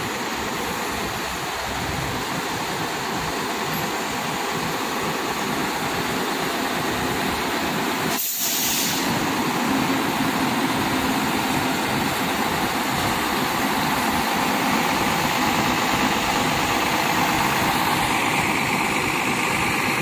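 A large intercity coach's diesel engine running at low speed close by as the coach moves slowly past, growing slightly louder. The sound breaks off briefly about eight seconds in.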